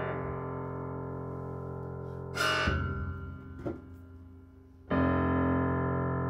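Prepared Disklavier grand piano: a held chord rings and dies away, a sharp new struck sound comes about two and a half seconds in, then a small knock. A loud new chord enters about five seconds in and rings on.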